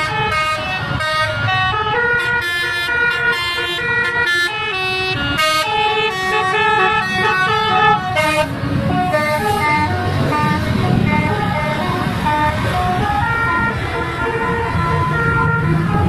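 Bus telolet horn, a multi-tone horn playing a quick melody of stepped notes with several tones sounding at once, over a low engine rumble.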